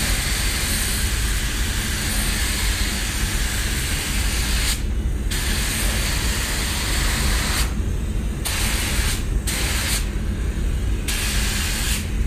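Compressed-air gravity-feed spray gun hissing as it sprays automotive paint onto a car body panel. The hiss cuts out briefly several times between passes, over a steady low rumble.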